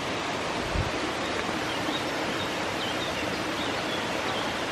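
Running water of a waterfall-fed woodland stream: a steady, even rush.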